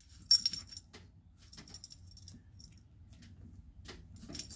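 Metal pendants on a chain necklace clinking and jingling as they are handled, with one jingle just after the start, faint ticks, and another jingle near the end.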